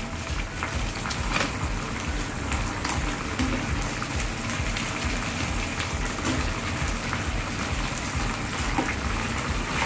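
Thick soy-and-chilli Manchurian gravy sizzling steadily in a frying pan on a high gas flame, with scattered faint crackles.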